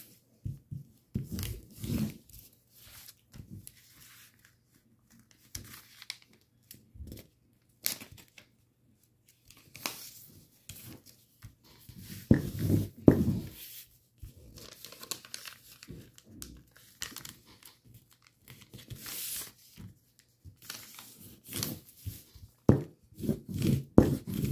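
A square sheet of origami paper being handled and folded, with irregular rustling and crinkling as its corners are brought to the centre and the folds creased flat; the loudest crinkles come about halfway through and near the end.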